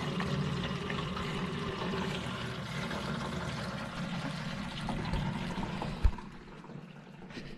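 Water running from a pipe and pouring into a container, a steady splashing flow. About six seconds in there is a single sharp knock, and after it the water sound falls away to a faint trickle.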